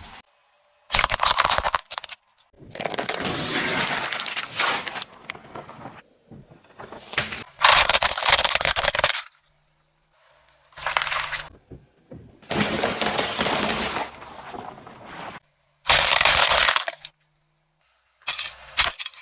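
Repeated crunching and cracking as objects are crushed under a car's tyre: about seven separate bursts, each a second or two long, starting and cutting off abruptly.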